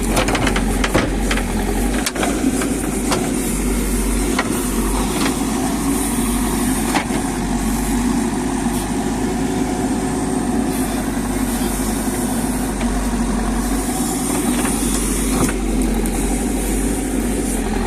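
JCB backhoe loader's diesel engine running steadily as it digs, with a few sharp knocks scattered through.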